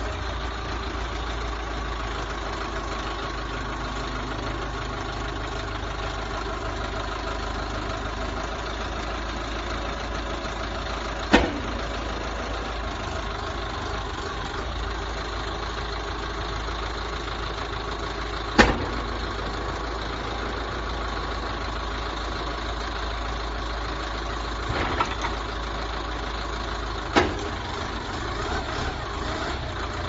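Backhoe loader's diesel engine running steadily while the front loader arm works, with four sharp knocks at irregular intervals.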